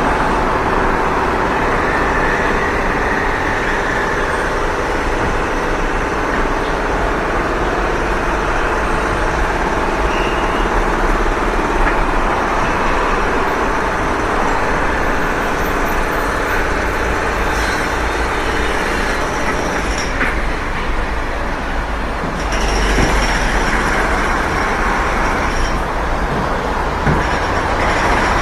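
Loud, steady background din of construction work and heavy vehicles, with a deep rumble underneath.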